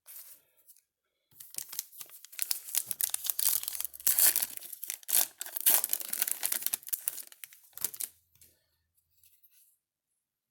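A Topps baseball card jumbo pack's plastic foil wrapper being torn open and crinkled, a run of ripping and rustling for several seconds that dies down near the end.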